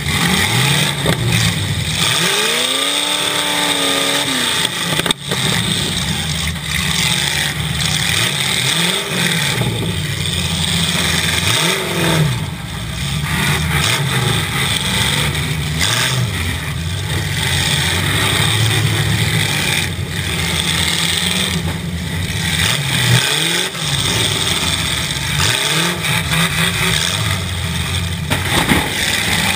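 Demolition derby car's engine revving up and falling back again and again, heard from inside the stripped-out cab under loud, steady mechanical noise.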